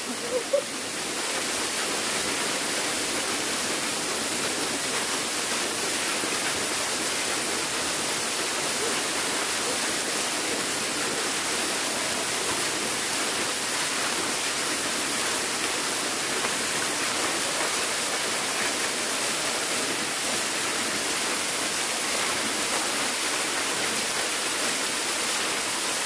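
Small waterfall pouring steadily down a rock face and splashing onto the rocks and pool below, a constant, even rush of water.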